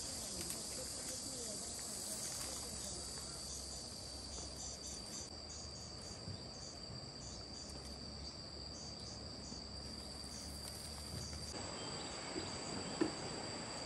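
Insects chirring in a steady high-pitched drone, with a pulsing trill joining through the middle. A single short knock near the end.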